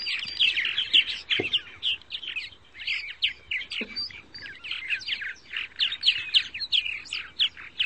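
Bird chirping and twittering: a fast, unbroken run of many short high notes, each falling in pitch.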